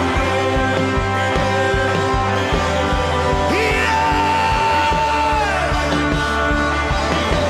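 Worship band music: sustained keyboard chords over a steady drum beat. About three and a half seconds in, a single high note slides up, holds, and bends down again near six seconds.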